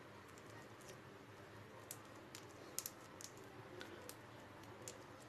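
Faint, irregular sticky clicks of homemade sugar wax being kneaded and pulled between the fingers.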